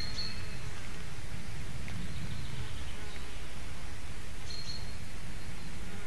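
Forest ambience: a steady low buzzing hum, with a short high bird chirp right at the start and another about four and a half seconds in.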